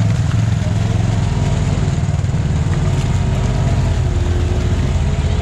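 Side-by-side UTV engine running steadily under way, a loud low drone that holds an even pitch.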